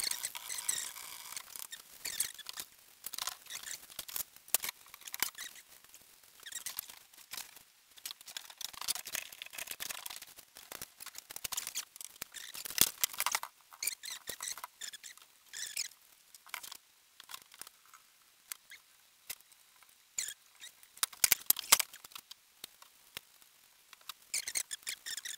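Paintbrush strokes scratching over the metal of a homemade log jack as it is painted. The strokes come in irregular bursts of short, scratchy sounds with quieter pauses between, busiest around the middle and again about three-quarters through.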